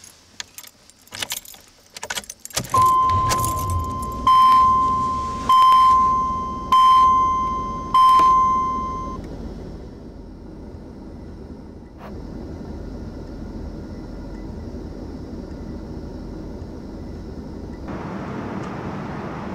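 Car keys jangling and clicking into the ignition lock. Then the car's warning chime dings about five times, a little over a second apart, over a low engine rumble. A steady running hum follows, and near the end the sound changes to outdoor traffic noise.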